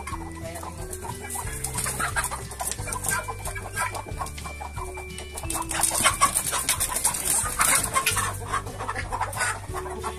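Basilan chickens squawking and clucking in alarm, with dense scuffling and wing-flapping, as a hen is chased and grabbed by hand; the commotion is loudest around six to eight seconds in. Background music plays underneath.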